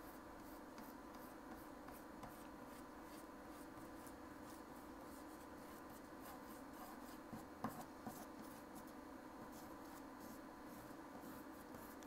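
Faint scratching of an oil pastel stroked softly over paper in quick repeated strokes, with one small knock about seven and a half seconds in.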